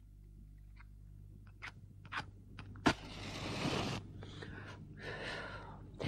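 Radio-play sound effects: a few sharp clicks or knocks over a low hum, then about three seconds in a louder rushing, scraping noise lasting about a second, followed by softer rustling.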